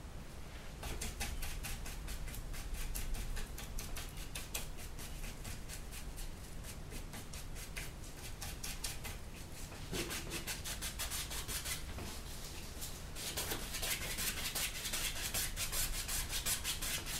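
Paintbrush scrubbing oil paint onto a stretched canvas in quick back-and-forth strokes, several a second. The strokes start about a second in and grow louder and denser near the end.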